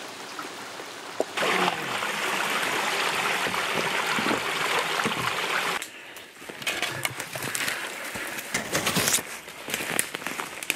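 A small rocky woodland brook, its water rushing steadily until it cuts off about six seconds in. Then footsteps and the crackle and rustle of branches and leaves as a hiker pushes through forest undergrowth.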